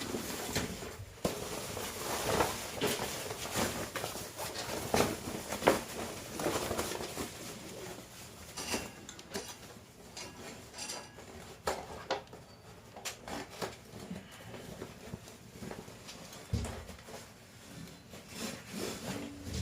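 Irregular clicks, knocks and scraping of plastic and metal parts being handled and taken apart, busiest in the first half, as an air-conditioner unit is dismantled for cleaning.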